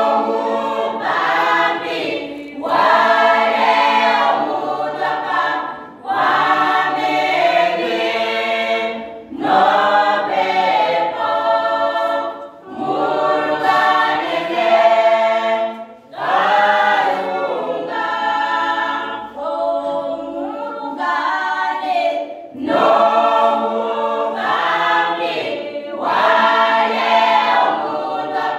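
Youth choir singing a cappella in several parts, in phrases of a few seconds with short breaks for breath between them.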